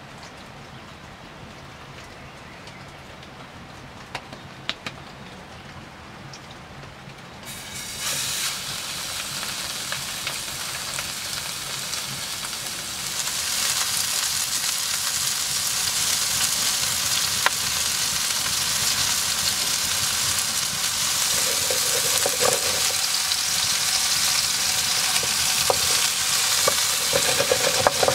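Quiet at first with a few faint clicks. About seven seconds in, a raw beef burger patty starts sizzling in a hot iron skillet over a wood fire. The sizzle grows louder about thirteen seconds in and stays steady, with occasional spits and pops.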